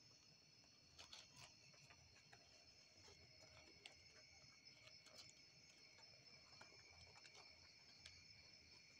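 Faint, steady high-pitched chirring of night insects, with a few faint scattered clicks.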